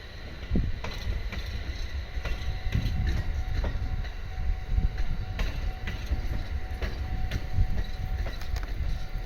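JR East 701-series electric train running on the track: a continuous low rumble with repeated sharp clicks of the wheels going over rail joints.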